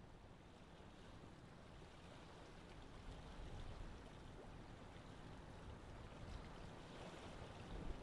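Faint, steady water noise of a running aquarium.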